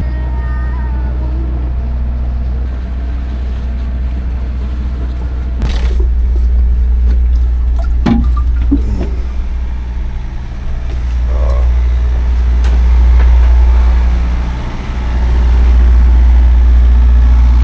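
A sailboat's inboard engine running steadily under way: a continuous low drone, with a few brief knocks about six and eight seconds in.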